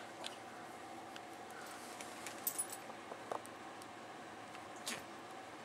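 A few faint small clicks and light taps from two cats moving about, a short cluster about two and a half seconds in and another near the end, over quiet room tone with a faint steady hum.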